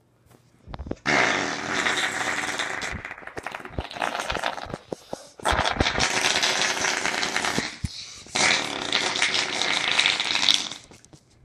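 A child making loud rasping, growling noises with the mouth, in three long stretches with short breaks between them.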